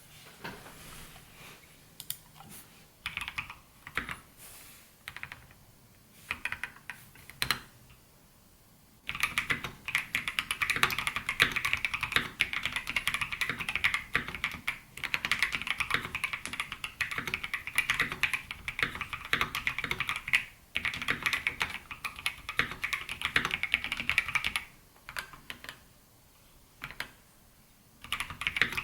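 Typing on a custom mechanical keyboard with lubed and filmed Gateron Box Ink Pink linear switches, a polycarbonate plate, an O-ring mount and high-profile MT3 keycaps. Scattered single keystrokes at first, then fast continuous typing from about nine seconds in, thinning to a few keystrokes before picking up again near the end.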